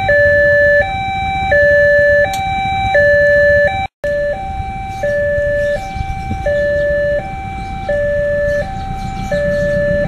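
Indonesian railway level-crossing alarm sounding from the horn speaker on the crossing-signal post: an electronic two-tone warning switching between a higher and a lower note about every 0.7 seconds, the signal that a train is approaching. It breaks off for an instant about four seconds in and goes on a little quieter.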